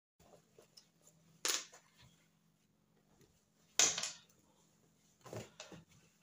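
Cotton cloth rustling and swishing as a sewn pocket is handled and turned inside out, with three louder swishes: about a second and a half in, near four seconds (the loudest) and near the end.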